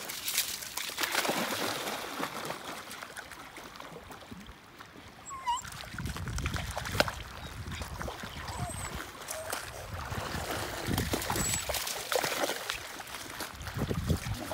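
Dogs splashing through shallow river water, wading and swimming after a thrown ball, with an uneven patter of splashes that dips for a few seconds in the middle.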